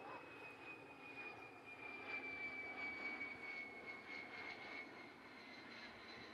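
A-10 Thunderbolt II's twin turbofan engines whining in flight, the high whine sliding slowly down in pitch over a steady jet rush.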